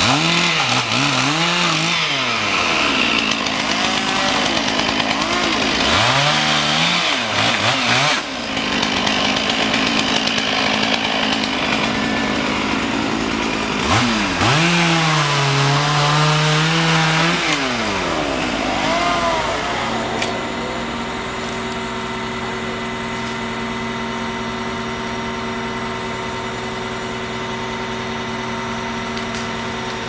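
Two-stroke chainsaw revving up and down while cutting a limb, held at high speed for a few seconds past the middle, then stopping about two-thirds of the way in. After that, the crane's engine runs with a steady hum while the cut limb hangs on the crane line.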